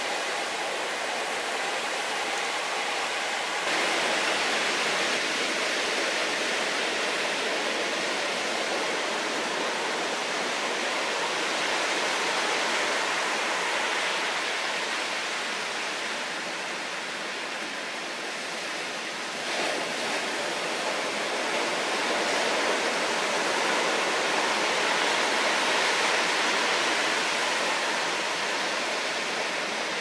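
Heavy typhoon surf breaking on a rocky shore: a steady rushing wash of surf that swells and eases as the waves come in, shifting abruptly in character about four seconds in and again around two-thirds of the way through.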